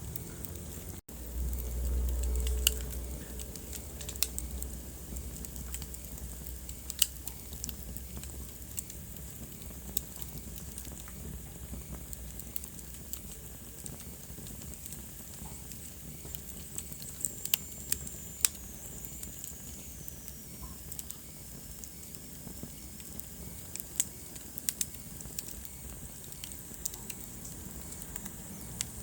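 Wood fire crackling in a fireplace: scattered sharp pops and snaps over a soft steady hiss. A low rumble swells for a couple of seconds near the start, and a faint whistle falls in pitch around the middle.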